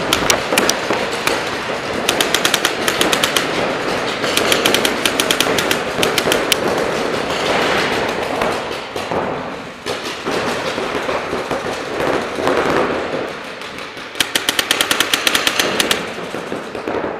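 Paintball markers firing rapid strings of shots, about eight a second, in bursts of one to two seconds, the longest near the end, over a constant noisy background.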